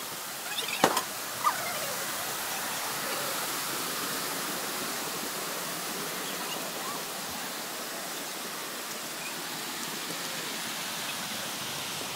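Steady rushing of a waterfall, an even hiss of falling water. A sharp knock and a short squeak stand out briefly about a second in.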